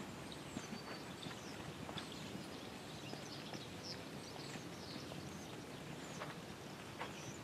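Hoofbeats of a black Tennessee Walking Horse mare gaiting under a rider on arena sand, with small birds chirping.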